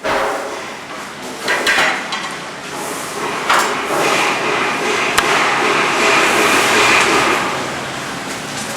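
Hammer blows: a few irregular strikes, with steady work noise between them.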